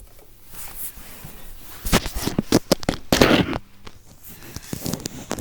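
A cluster of short rustling and knocking noises about two seconds in, with a few more near the end.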